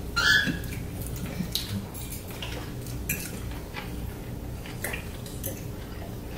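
Cutlery clinking and scraping on dinner plates in scattered light strokes, the loudest just after the start.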